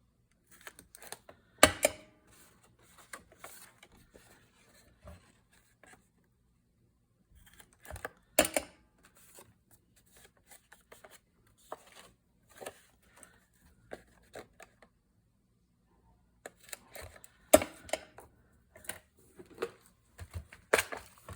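A hand hole punch snapping through paper file folders: four sharp clicks spread out, with paper and tool handling between them.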